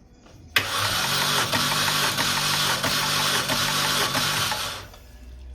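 Starter motor cranking the 2006 Mini Cooper JCW's supercharged 1.6-litre four-cylinder engine for about four seconds without firing, with an even beat of compression strokes, then stopping. This is a compression test on cylinder 2, which reads about 150 psi, unlike cylinder 1 at zero.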